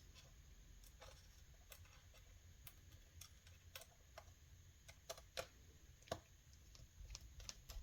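Faint, irregular small ticks and clicks of a screwdriver driving a small screw back into a laptop.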